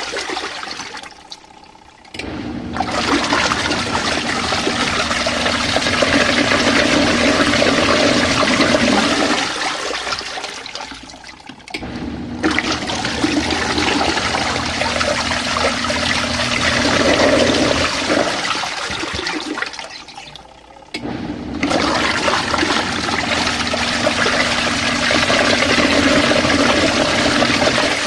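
Compact RV washing machine in its wash cycle: water churning in the tub over a low motor hum. The agitation stops for about two seconds three times, then starts again.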